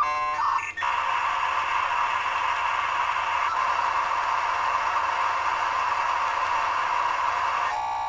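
Synthesized futuristic phone sound effects: a short electronic beeping tone ends under a second in, followed by about seven seconds of a steady static-like hissing buzz. Another electronic tone starts near the end.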